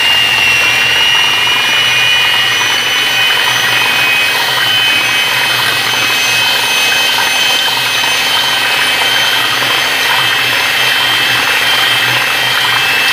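Electric hand mixer running steadily, its twin beaters whisking a runny mango-custard and cream mixture in a steel bowl. The motor gives a steady high whine that creeps slightly higher near the end.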